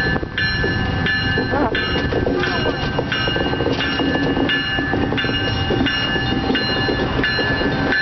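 Diesel locomotive rolling slowly with its bell ringing steadily, about three strikes every two seconds, over the low rumble of its diesel engine.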